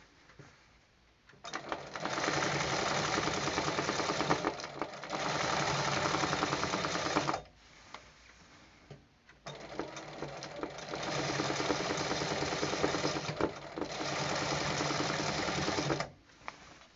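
Sewing machine stitching fast in hand-guided free-motion embroidery. It runs in two bursts of about six seconds each and pauses briefly between them.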